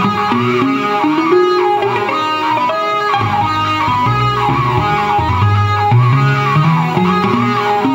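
Music: a plucked, guitar-like melody over a moving bass line.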